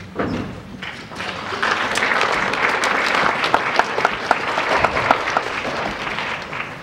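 Theatre audience applauding: dense clapping that swells about a second and a half in and thins out near the end.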